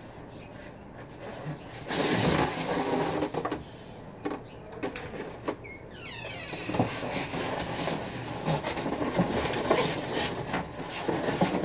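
Foam packing and a cardboard box being handled: rubbing, scraping and light knocks as the white foam top insert is lifted out of the box and set back in, loudest about two seconds in.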